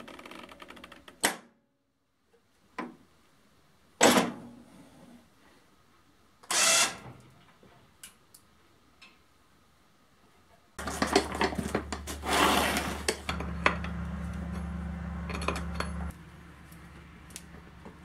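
Metal parts of a workshop build clanking and knocking in a few separate strokes, then a machine starts and runs with a steady hum for about five seconds before dropping to a fainter tone.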